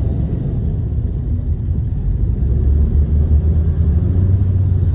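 Steady low rumble of a taxi driving along, heard from inside the cabin: engine and road noise. A few faint ticks sound about once a second.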